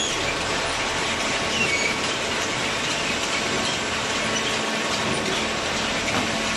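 Automatic waste paper baler running: a steady mechanical din with faint high squeaks over it.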